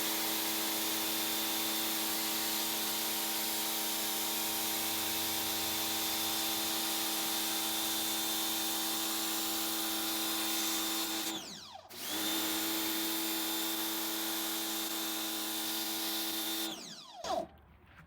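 Pressure washer running steadily, its motor whining over the hiss of the spray. About twelve seconds in, the motor winds down briefly and picks back up. Near the end it winds down and stops.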